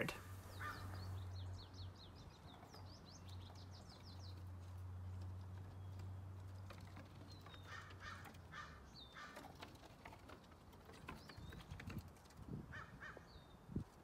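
Faint backyard birdsong: a fast high trill in the first couple of seconds, then two bursts of harsh caw-like calls in the second half, with a few short high chirps between. A single low thump near the end.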